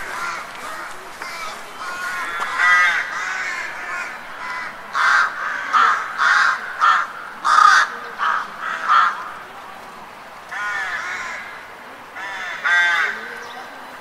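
Several crows cawing, their calls overlapping. A run of about eight loud caws in quick succession comes in the middle, with scattered single caws before and after and fainter cawing behind.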